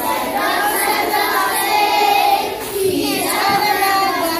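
A group of young children singing a Christmas carol together in chorus.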